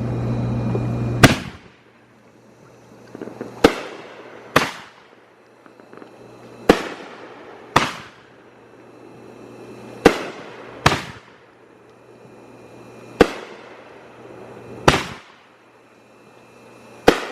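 Wacky Tobacco consumer firework cake firing a sequence of aerial shots: each launch thump is followed about a second later by the shell breaking overhead with a short crackling tail, about five shots in all. The first second holds steady noise with a low hum.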